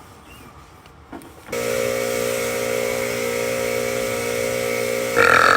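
An electric appliance's motor starts running abruptly about a second and a half in, a steady hum with several steady tones. A loud burp breaks in near the end.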